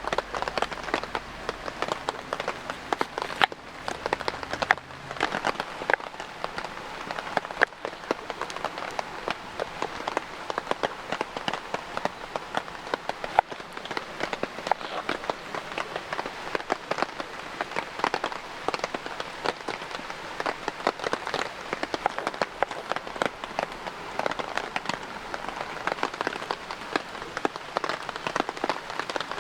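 Steady light rain, with many drops tapping sharply and irregularly on nearby surfaces.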